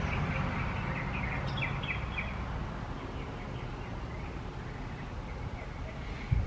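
Small birds chirping over a low outdoor rumble that fades away. A short low thump comes near the end.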